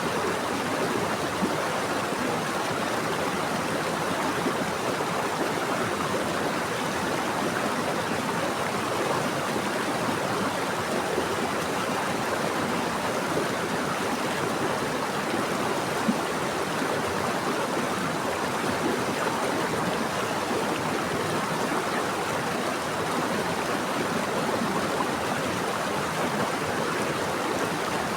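Flowing water in a stream or river, a steady rushing with no breaks.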